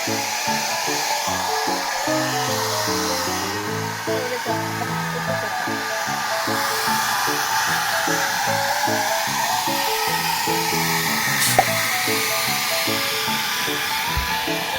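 Background music playing over the steady blowing of a hair dryer, with a single click a little past the middle.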